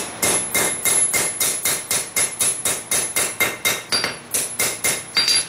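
Hand hammer striking a railroad-spike fork handle on a steel anvil, about four ringing blows a second, with a brief pause about four seconds in. The blows put a hammered texture along the rounded shank.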